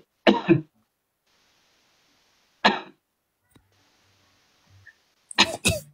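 A person's short cough-like vocal sounds: three brief bursts about two and a half seconds apart, with near silence between.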